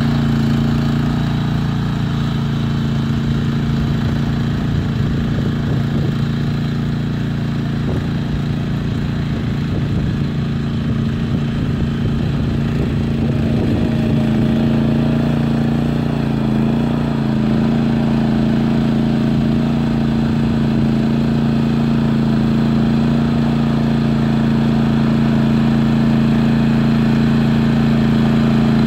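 Tracmaster 740 two-wheel tractor's engine running steadily under load, driving a 75 cm power harrow through the soil. Some irregular clattering comes through in the middle.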